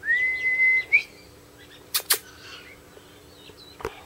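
A person's loud whistle calling a dog: one held note that rises slightly at the start and flicks up at the end. About a second later come two sharp clicks close together, then a single click near the end, with faint birds chirping behind.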